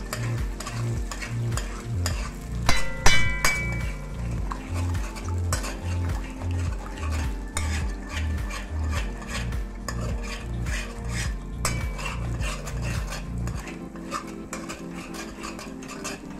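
Metal spoon scraping and tapping steadily around a metal pot as eggs are scrambled in hot oil, over a light sizzle. One louder ringing clank of spoon on pot about three seconds in.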